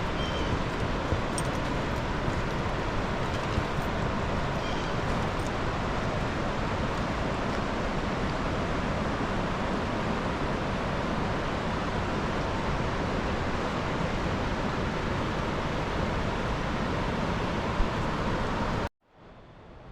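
Steady rushing of river rapids, an even roar that cuts off suddenly near the end.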